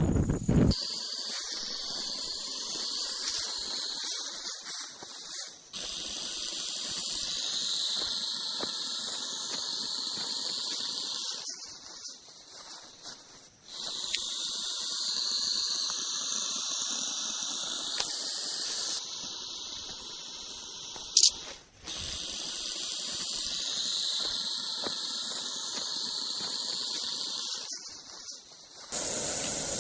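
Boa constrictor hissing: a string of long breathy hisses, each lasting several seconds, with short pauses between them and a sharp click about two-thirds of the way through.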